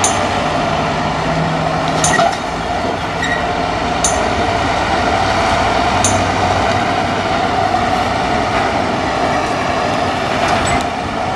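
Unimog truck driving, a steady engine and drivetrain drone with a sharp click about every two seconds.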